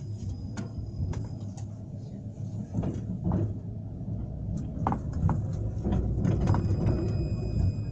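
Cabin noise of a 71-911 tram running: a steady low rumble with scattered clicks and knocks, and a faint thin high whine that fades and returns near the end.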